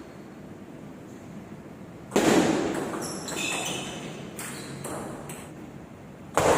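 Table tennis play in a hall: the ball being hit with paddles and bouncing, with a sudden loud hit about two seconds in and another near the end, a few lighter knocks between them.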